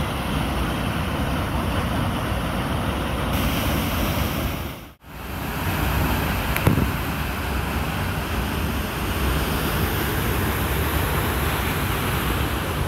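Waterfall and rocky stream rushing: a steady wash of falling and running water that cuts out briefly about five seconds in.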